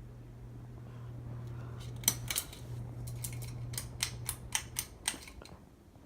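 Ceiling fan motor humming steadily until the hum stops near the end. Over it, from about two seconds in, comes an uneven run of about a dozen sharp clicks and ticks.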